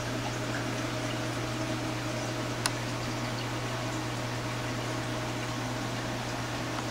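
Aquarium filter and water pump running steadily, water trickling over a constant hum. A single sharp click about two and a half seconds in.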